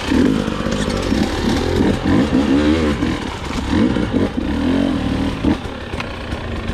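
Husqvarna enduro dirt bike engines revving up and down repeatedly as the bikes pull away at low speed on a trail.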